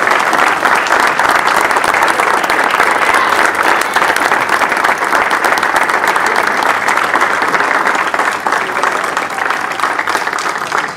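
A room full of people applauding steadily. The clapping begins to die down near the end.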